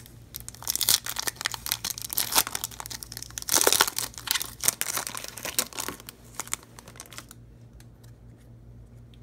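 The wrapper of a Topps Chrome baseball card pack being torn open and crinkled: a dense crackling with a louder rip about three and a half seconds in. It dies away about seven seconds in.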